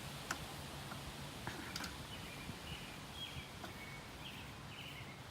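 Small birds chirping in the background, a string of short, high calls, with a few faint clicks.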